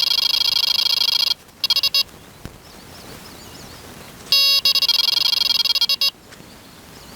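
Electronic carp bite alarm sounding a rapid, continuous warbling tone, the sign of a fish running with the line. It stops about a second and a half in, gives a few short bleeps, then sounds again for nearly two seconds in the middle.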